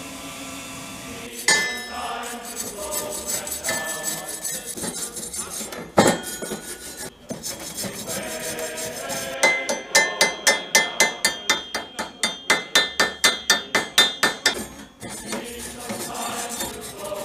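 Hammer striking steel plate on a metal workbench. There is a single blow about a second and a half in and another about six seconds in, then a fast run of ringing strikes, about four a second, lasting some five seconds.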